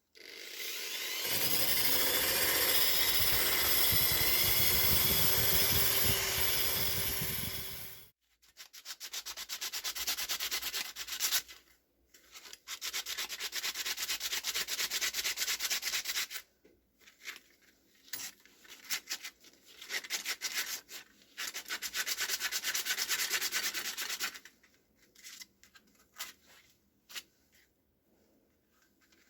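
Abrasive sanding and rubbing on oil lamp parts during restoration. A loud continuous stretch lasting about seven seconds comes first, then repeated bouts of sanding strokes with short pauses between them.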